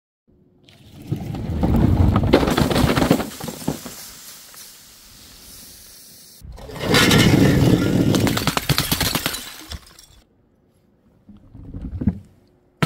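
Two long spells of crunching and crackling as plastic soda bottles are crushed on a board of nails, then a single sharp hit near the end as a watermelon drops onto a wooden board.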